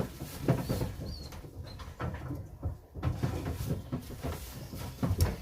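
Knocks, clatter and rustling as racing pigeons are taken out of their box or pen by hand, with a brief faint high chirp about a second in.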